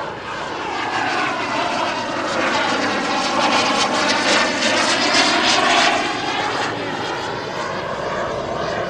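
JetCat P-220RXi turbine of a large-scale Fiat G91 model jet in flight, passing over: the jet noise swells to its loudest past the middle, with a sweeping, phasing sound, then eases off.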